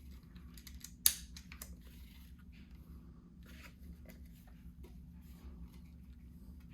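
A sharp plastic click about a second in, then faint small clicks and rustles as the polymer Bug-A-Salt Shred-er salt gun is handled.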